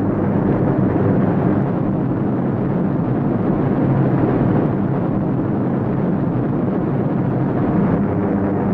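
Wright Cyclone radial piston engines of a B-17 Flying Fortress running with a loud, steady, rumbling drone.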